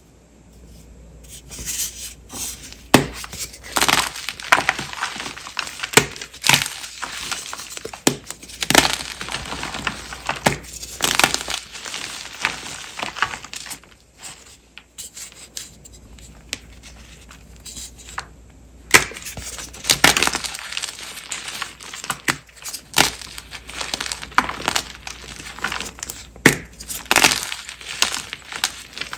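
Blocks of Ader gym chalk being crushed and crumbled by hand: a dense, irregular run of crunches, sharp cracks and powdery crumbling, starting about a second in and easing briefly about halfway through.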